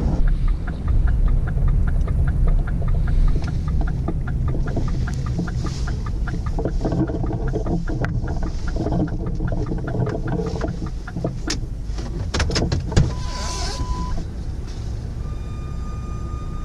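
Pickup truck running and driving, a steady low rumble, with a run of regular ticks early on, a few sharp clicks in the second half, and two short steady tones near the end.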